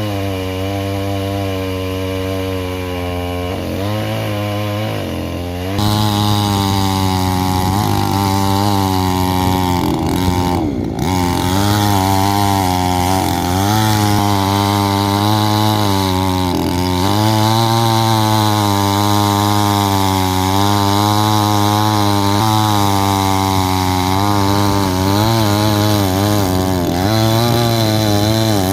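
Petrol wood-cutting machine, a chainsaw-type saw, running hard while cutting coconut tree trunks. Its engine pitch sags and recovers again and again under the load of the cut. It gets louder about six seconds in and dips briefly around eleven seconds.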